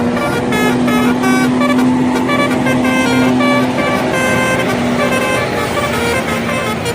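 Indonesian bus telolet horn, a set of electric air horns playing a fast melodic run of short notes that jump up and down in pitch, several sounding together, over a steady low tone that stops shortly before the end.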